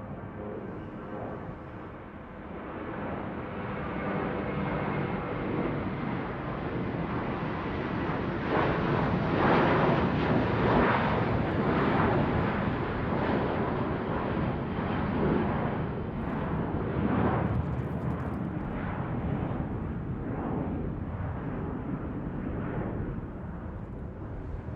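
Airplane flying overhead: a broad rushing rumble that swells over about ten seconds, surges unevenly at its loudest, then slowly fades away.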